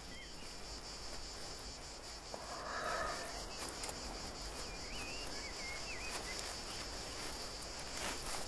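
Steady high-pitched chorus of insects chirring in the summer maquis, a fast pulsing buzz that goes on without a break.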